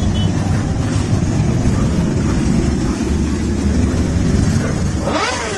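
Many motorcycle engines running together as a large pack rides past, a loud, steady low drone. Near the end a brief pitched sound falls sharply in pitch over it.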